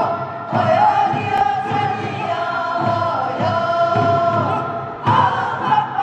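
A mixed chorus of men and women sings a Korean fishermen's folk song from the North Pyongan west coast in long, sliding held notes. A barrel drum (buk) keeps a steady beat of about two strokes a second. About five seconds in, a new phrase begins with a voice gliding down.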